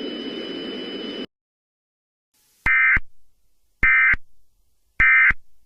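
Three short, identical bursts of EAS/SAME digital data tones, evenly spaced just over a second apart: the end-of-message code that closes an emergency alert. Before them, a steady hiss with faint high tones cuts off suddenly about a second in.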